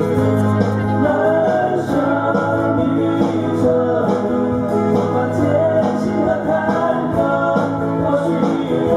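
Male voices singing a slow song, accompanied by two amplified silent guitars being strummed and picked.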